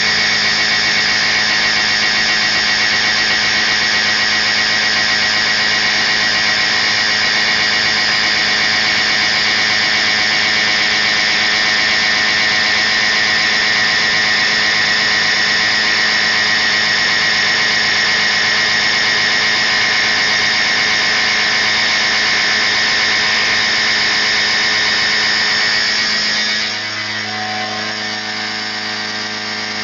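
HM-Fermat WFT 13 horizontal boring mill milling a T-slot: a loud, steady high squeal from the cutter in the cut over the machine's steady hum. About 26 seconds in the squeal drops away and the machine runs on with only its hum.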